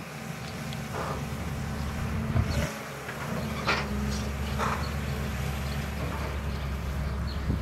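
Caterpillar 320CL long-reach excavator's diesel engine running steadily under work, with a brief drop in level about a third of the way in. A few short, sharp noises sound over it.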